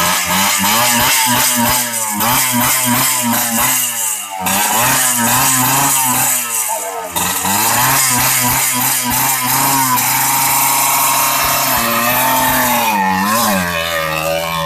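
Small motorcycle engine running just after a hard start, its pitch wavering and rising and falling as the throttle is blipped. It dips briefly twice, then glides in pitch near the end.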